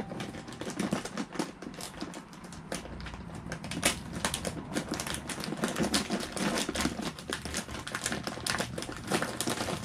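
Plastic bag of Whiskas dry kitten food crinkling and crackling as hands work at its top to open it: a steady run of irregular small clicks and rustles.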